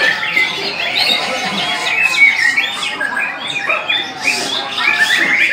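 Many caged competition songbirds singing at once: a dense, loud tangle of overlapping chirps, trills and whistles.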